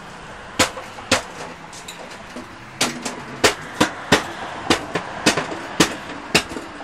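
A run of about a dozen sharp knocks or taps: two single ones early, then about two a second from about three seconds in.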